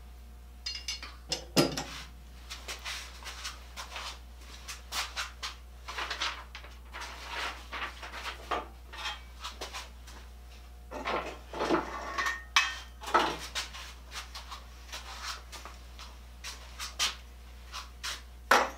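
Metal saw vises and hand tools being handled and set down on a wooden workbench: irregular clanks, knocks and rattles in clusters, over a steady low hum.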